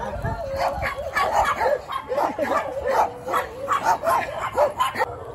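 Small dogs yipping and barking in quick, repeated high-pitched calls that stop near the end.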